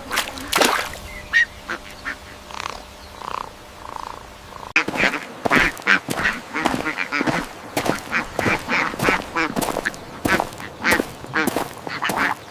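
A flock of birds calling, a few scattered short calls at first, then many short calls close together from about five seconds in.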